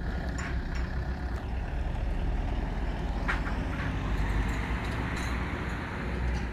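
Passenger van driving past on a paved road, its engine and tyre noise growing louder and then easing as it moves away, over a steady low rumble.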